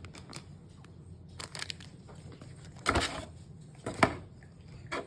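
Packaging being handled during an unboxing: rustling and crinkling of plastic wrap and cardboard, with two louder short crackles about three and four seconds in.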